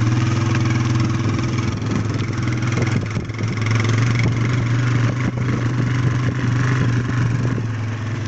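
Motorcycle engine running steadily at low revs close by, a continuous hum.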